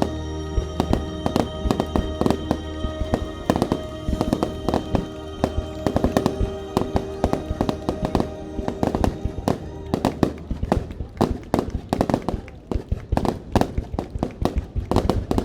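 Fireworks display: a rapid, dense string of shell bursts and crackling over music. The music fades about two-thirds of the way in while the bursts grow thicker.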